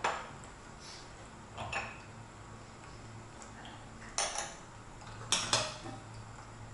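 Porcelain and glass teaware on a wooden tea tray clinking as it is set down and handled, the gaiwan lid tapping against its bowl. There are short sharp clinks: one at the start, a soft pair just under two seconds in, another pair around four seconds in, and two louder ones a little after five seconds.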